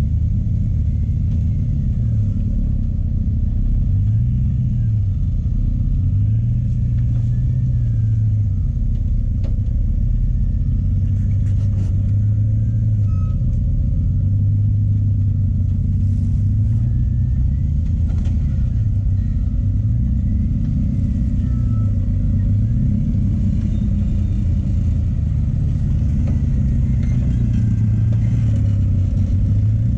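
Jeep Wrangler JKU's engine working at low speed over rock, its revs rising and falling every second or two as the throttle is fed in and eased off.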